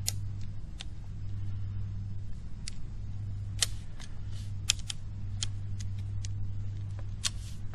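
Sharp clicks and snaps of a Zomei Z818 tripod's leg-lock clips and leg hinges as the legs are pushed back and flipped up to fold it, about ten scattered clicks over a steady low rumble.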